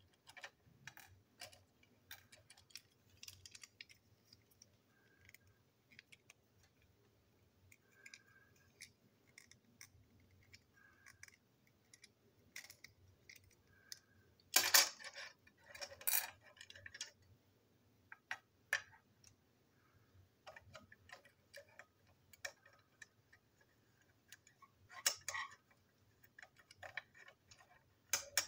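Small plastic toy train truck parts being handled and pried apart: scattered light clicks and taps of plastic on plastic and on the table, with a louder clatter about halfway through and another near the end.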